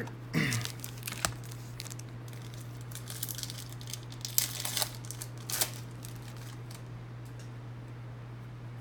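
Foil card-pack wrappers crinkling and trading cards being handled, in irregular rustling bursts with a sharp click, dying away after about six seconds. A steady low hum runs underneath.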